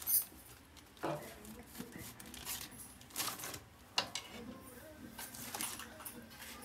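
Quiet handling noise of small objects by hand: light rustling with a few sharp clicks, the sharpest right at the start, about a second in and about four seconds in.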